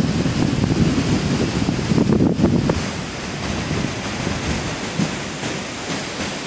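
Storm wind buffeting the phone's microphone: an uneven low rumble that is strongest for the first couple of seconds, then eases off about three seconds in.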